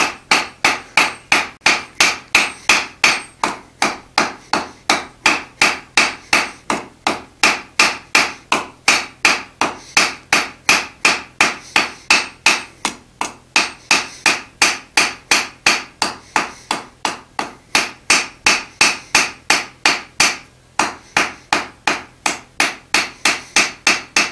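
Hand hammer striking a red-hot iron bar on an anvil in a steady rhythm, about two to three ringing blows a second, drawing the bar's end out into a flat taper. The blows stop briefly near the end, then carry on.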